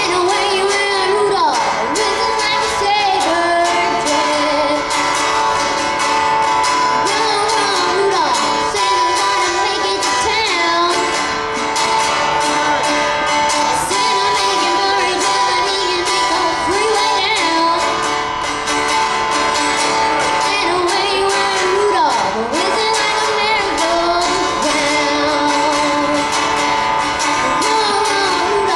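A young girl singing and playing an acoustic guitar, amplified through a stage PA system.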